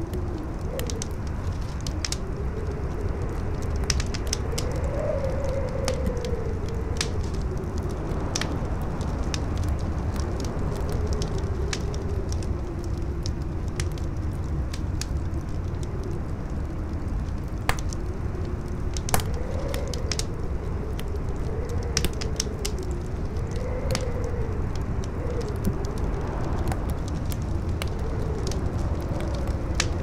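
Campfire crackling with scattered sharp pops, a few louder ones in the middle, over a steady low rumble of strong wind and a howling wind tone that slowly rises and falls in pitch.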